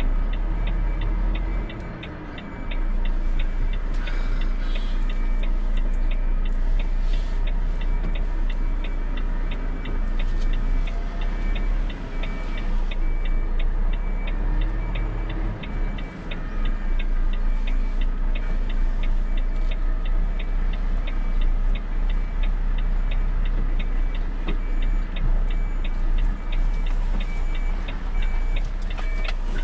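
Volvo truck's diesel engine running with a steady low rumble inside the cab, over an evenly repeating tick of the turn-signal indicator.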